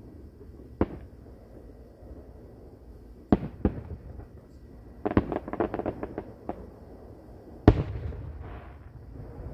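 Aerial fireworks shells bursting: a single bang about a second in, two more close together a little past three seconds, a fast run of crackling pops in the middle, and the loudest bang near the end.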